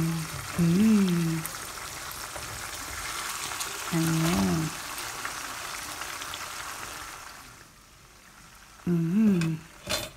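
Chicken adobo sizzling in an uncovered frying pan, a steady crackling fry that fades out about three-quarters of the way through. A short hummed voice sound comes three times over it.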